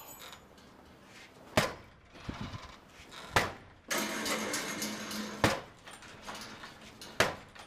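A door held shut by a strike plate lock being forced against it, giving four loud bangs about two seconds apart, with a stretch of rattling noise between the second and third.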